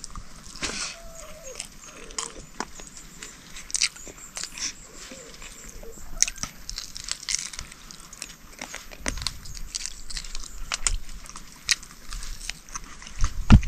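A person chewing pork curry and rice, with scattered wet smacks and sharp crunching clicks.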